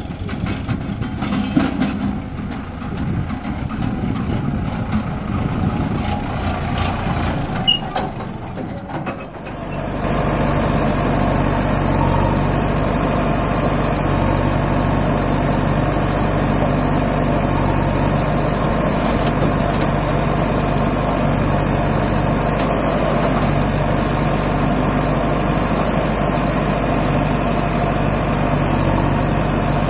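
Sonalika tractor's diesel engine running unevenly as it pulls a trolley across a field. About ten seconds in the sound changes abruptly to a steady diesel engine idle close by, from the tractor and a JCB 3DX backhoe loader standing side by side.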